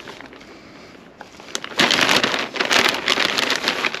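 Potting compost being tipped and scattered into pots, a dense crackling patter that starts about two seconds in, after a quieter start, and runs for about two seconds.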